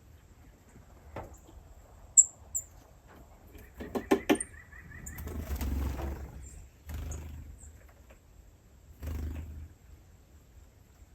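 Small animals calling: two sharp, high chirps, then a quick run of squeaky calls about four seconds in, followed by a few longer noisy bursts.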